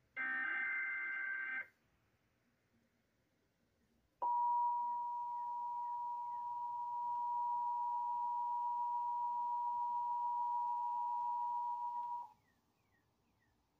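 The last burst of an Emergency Alert System SAME header, a buzzing digital data burst, ends about a second and a half in. After a short pause, NOAA Weather Radio's single-pitch 1050 Hz attention tone sounds steadily for about eight seconds and cuts off sharply. Together they are the signals that open a new alert broadcast.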